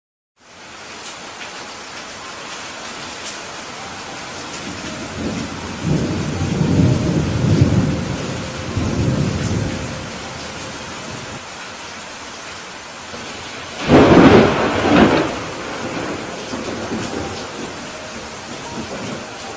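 Heavy rain falling steadily, with thunder: a low rolling rumble from about six to ten seconds in, then a sharp, loud thunderclap about fourteen seconds in that peaks twice. The audio cuts out for a moment at the very start.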